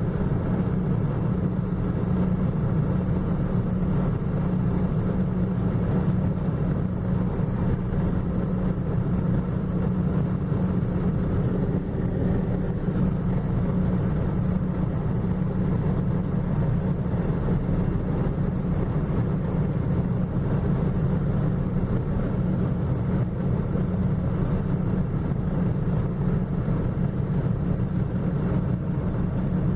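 John Deere 6620 combine's diesel engine and machinery running steadily at work in corn, heard from inside the cab as an even low drone.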